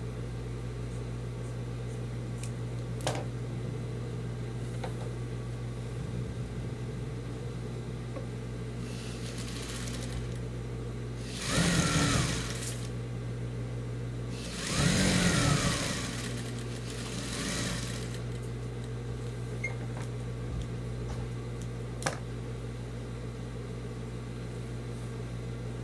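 Electric sewing machine stitching a strip of denim in two short runs, about a second and then about three seconds, the motor speeding up and slowing down, over a steady low hum.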